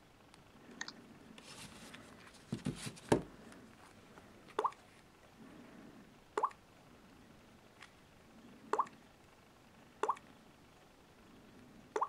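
Samsung Galaxy S4 mini touchscreen tap sounds: short, water-drop-like plops, one every second or two as the screen is tapped. A few louder knocks about two and a half to three seconds in, from the phones being handled.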